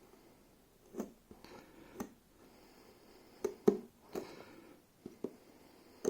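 A blade slicing through the seal stickers on a cardboard smartphone box: irregular sharp clicks and short scrapes, the loudest snap about three and a half seconds in.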